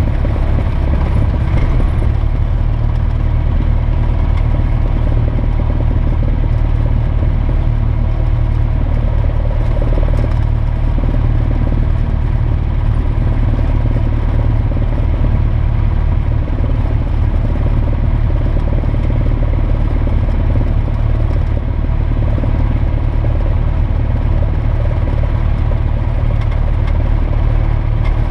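Single-engine light aircraft's piston engine and propeller running steadily at low taxiing power, an even low-pitched drone.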